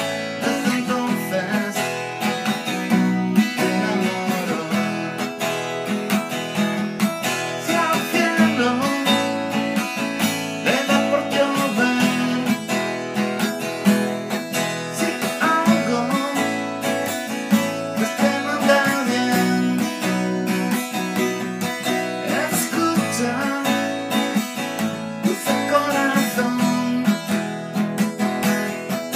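Acoustic guitar strummed and picked in a steady rhythm, playing a song.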